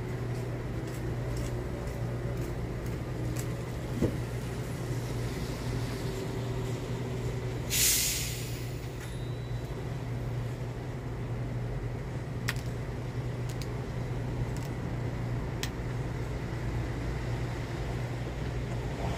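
A plastic bottle of Coca-Cola twisted open about eight seconds in, letting out a sharp hiss of escaping carbonation that lasts about a second, over a steady low hum.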